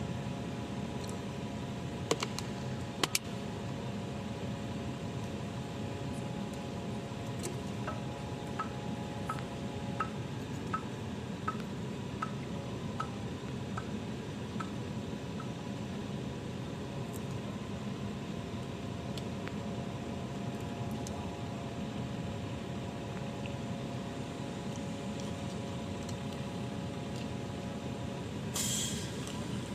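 Heavy construction machinery running steadily during a concrete pour, a low engine hum with a few steady tones. A few clicks come early, then a run of short faint beeps about two a second. Near the end there is a brief hiss.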